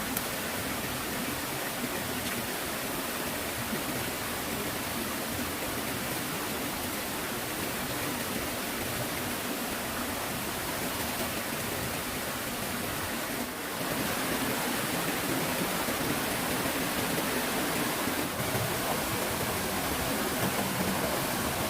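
Steady rushing of flowing stream water, a little louder from about 14 seconds in.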